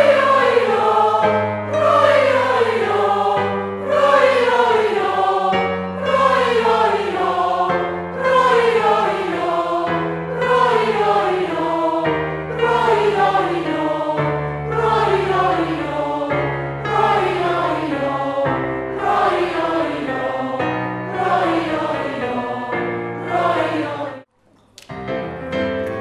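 Choral music: a choir singing phrases that fall in pitch, starting again about every two seconds over sustained low notes. It breaks off shortly before the end, and after a brief pause different music begins.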